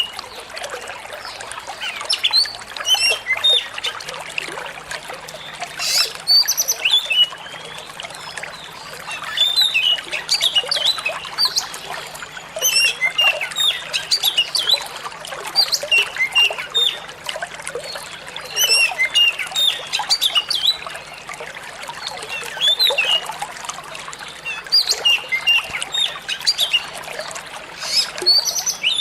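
Oriental magpie-robin singing a busy run of short whistles and chirps over a steady trickle of running water.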